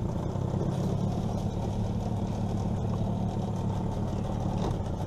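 Outboard motor on an aluminium jon boat running steadily at low speed as the boat creeps along the bank.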